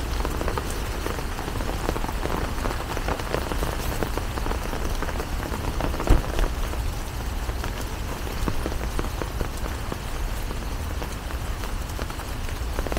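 Steady rain with many separate drops ticking close by, over a low rumble. One louder thump comes about six seconds in.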